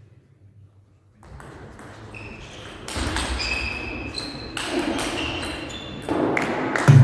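Table tennis rally: the plastic ball clicking back and forth off bats and table, beginning after about a second of near silence.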